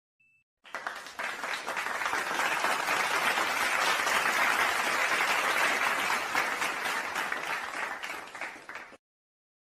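Crowd applause sound effect: many hands clapping. It swells in after a short silence, holds, then fades and stops about a second before the end.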